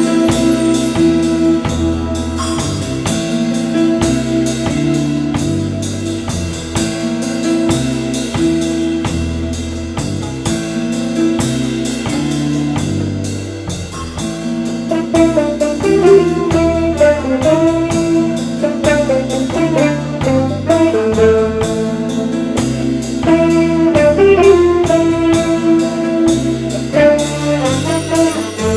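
Live jazz ensemble playing: saxophones and trumpet over drum kit, electric guitars and keyboards, with a steady drum beat and a moving bass line. The horns' melody comes forward about halfway through.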